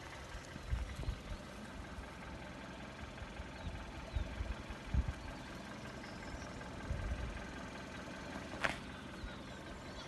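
Wind gusting on the microphone in irregular low rumbles, with a few faint high chirps and one brief sharp click near the end.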